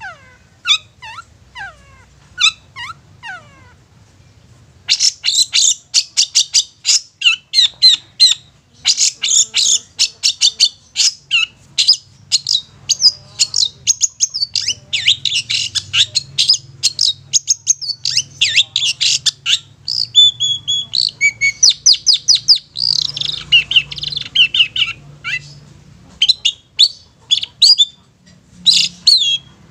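Long-tailed shrike singing. A few falling whistles open, then from about five seconds in comes a long, fast run of sharp chattering notes with whistled phrases woven through.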